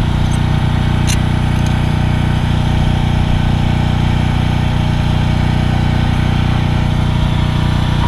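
An engine running steadily in a low, even drone, with a single light click about a second in.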